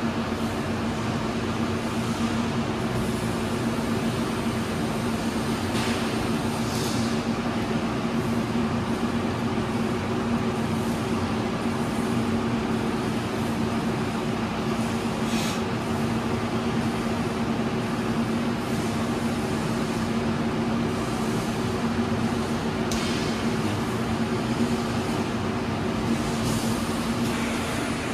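Steady mechanical hum of running equipment, with a constant low tone under a broad hiss and a few brief faint high-pitched rustles.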